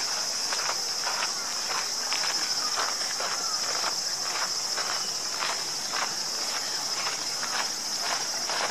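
Walking footsteps crunching on a gravel path, about two steps a second, over a steady high-pitched chorus of insects in the surrounding trees.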